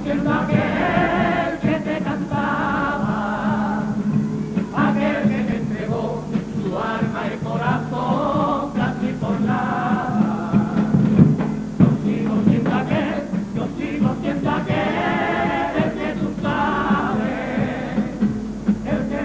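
A Cádiz-style carnival comparsa's male voices singing together in harmony, a popurrí (medley), with Spanish guitar accompaniment.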